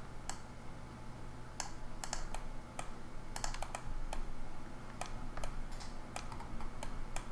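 Irregular clicks of a computer keyboard and mouse, a dozen or so single clicks and short runs, over a low steady hum.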